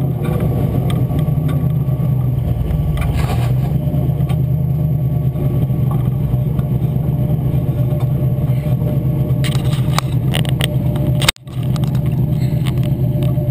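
Engine of a Dodge moose buggy running steadily while driving a dirt trail, picked up by a camera on the hood. Near the end come a few knocks and a momentary cut in the sound as a hand handles the camera.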